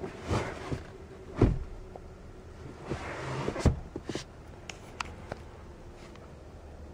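Handling noise: a hand rubbing and pressing at a leather seat back, with a few soft thumps and knocks, the loudest about a second and a half in and two more near the middle.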